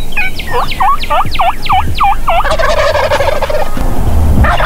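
Rio Grande wild turkeys calling: a run of about eight quick looping notes, then a rattling gobble from about two and a half seconds in, with another gobble starting near the end.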